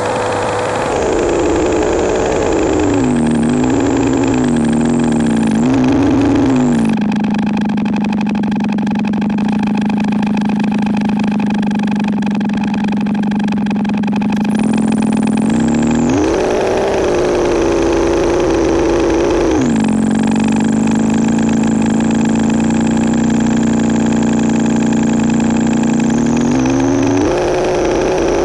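Patched analog synthesizer (a Make Noise 0-Coast with a gold touch-plate controller) droning a sustained note. In the first few seconds it glides down and wobbles, then holds a low note, steps up about halfway through, drops back, and rises again near the end.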